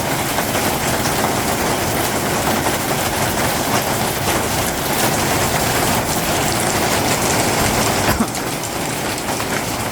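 Gale-force storm wind with rain, a loud steady rush of noise. A brief knock about eight seconds in, after which the rush is a little quieter.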